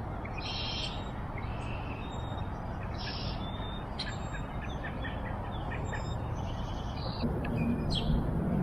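Wild birds chirping and calling in short, repeated high notes over a steady low rush of outdoor background noise.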